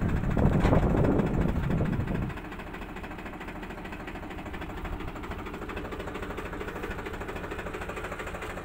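Tractor engine powering a hydraulic crash-barrier post-driving hammer, running loud for about two seconds and then dropping suddenly to a steady idle.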